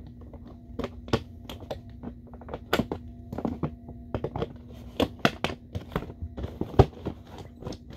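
Cardboard toy box being handled and turned: irregular knocks, taps and scrapes of the cardboard, over a faint steady hum.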